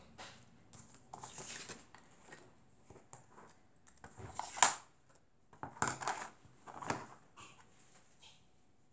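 Paper and card being handled: short, scattered rustles and light taps as sticker sheets, patterned papers and scissors are picked up and moved on a cutting mat, the sharpest one about halfway through.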